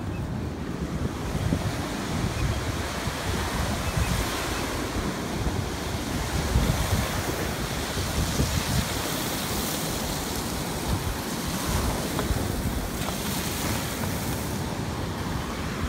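Wind buffeting the microphone as a land yacht runs along the beach, with surf breaking alongside. A brighter rushing hiss swells about four seconds in and drops away near the end.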